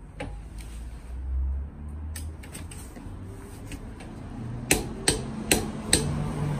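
Click-type torque wrench set to 80 ft-lb tightening a car's lug nuts. Faint clicks come through the middle, then four loud, sharp clicks about half a second apart near the end.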